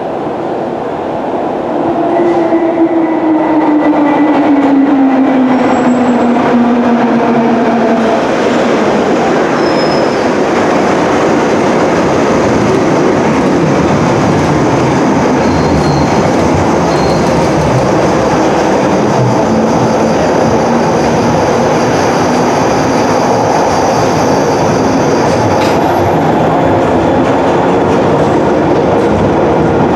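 London Underground 1972 Mk 1 tube stock train approaching and running through the station platform. A whine falls in pitch a few seconds in as the train arrives, then a loud, steady rumble of wheels on the track carries on, with a faint high squeal.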